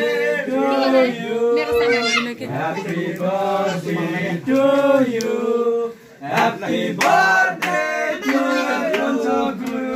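People singing a song with long held notes, pausing briefly about six seconds in.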